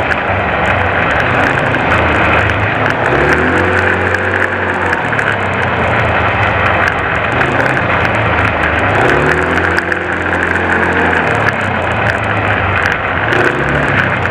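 Quad (ATV) engine running while riding, its pitch rising and falling a few times as the throttle opens and closes.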